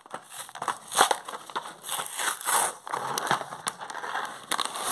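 Toy blister packaging being torn open by hand: the cardboard backing card ripping and the plastic blister crackling, in irregular bursts with a few sharp snaps.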